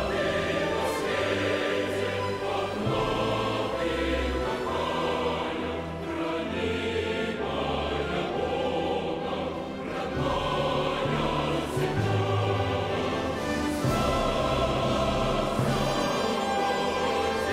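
A choir singing with an orchestra.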